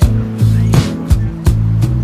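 Background music with a steady beat: drum hits about two and a half times a second over a held bass line.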